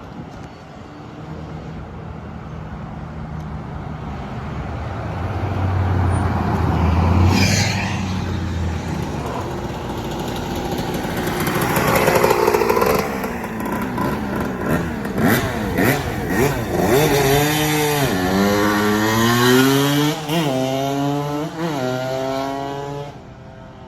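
1997 Suzuki RM125's single-cylinder two-stroke engine running. It idles at first, then in the second half it is revved up and let drop several times in quick succession before it falls away near the end.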